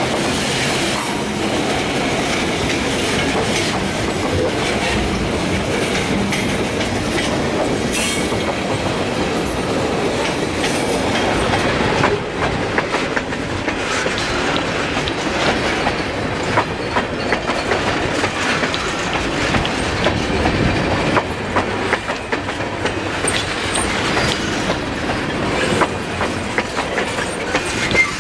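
Freight train cars (covered hoppers and tank cars) rolling past: a steady rumble and rattle of steel wheels on the rails, with clacks over the rail joints. From about twelve seconds in the clacks come sharper and more often.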